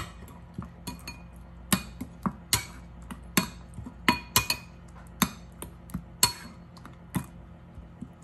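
Metal spoon clinking against a ceramic bowl as a thick sauce is stirred: sharp ringing clinks at uneven intervals, about one or two a second.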